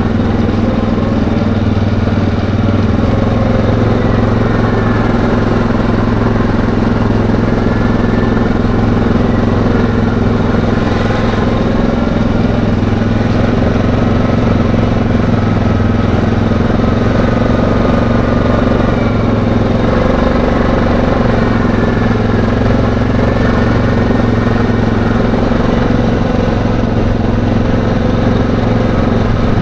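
ATV engine running steadily under way at a cruising pace, loud and close, its pitch rising and falling slightly with the throttle.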